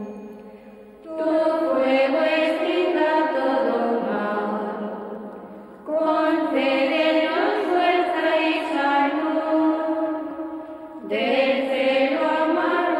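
A choir of cloistered nuns chanting in unison: women's voices sing three phrases, starting about a second, six seconds and eleven seconds in, each dying away before the next begins.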